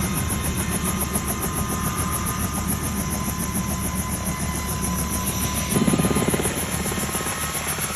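Helicopter rotor and engine running steadily with a fast, even rotor pulse, swelling louder for a couple of seconds near the end.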